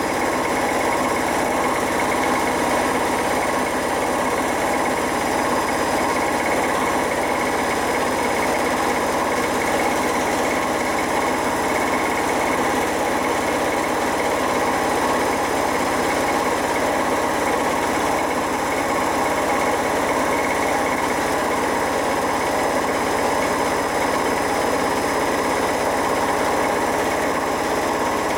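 Beko washing machine spinning at a steady speed with its transit bolts still in and its drum bearings worn out: a continuous roar and whine with several constant tones, unchanging throughout.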